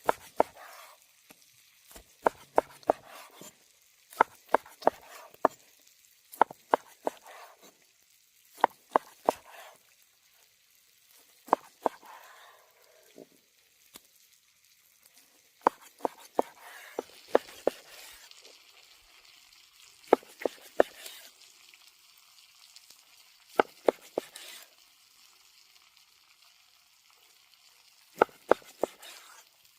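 Food sizzling in a pan as it cooks, with a faint hiss and bursts of sharp clicks and scrapes every second or two from a utensil stirring against the pan.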